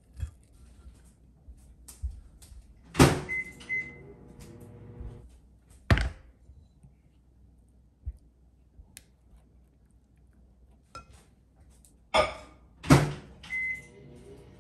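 Microwave oven used to melt chocolate in short rounds: a door thunks shut, a keypad beeps and the oven hums for about two seconds. This happens twice, about three seconds in and again near the end.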